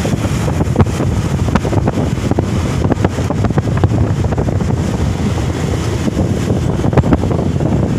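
Wind buffeting the microphone over the low rumble of a moving vehicle, with scattered knocks and rattles throughout.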